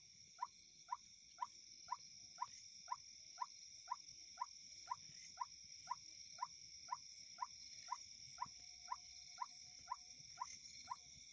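A frog calling with short, evenly spaced notes, about two a second, over a steady high chorus of insects.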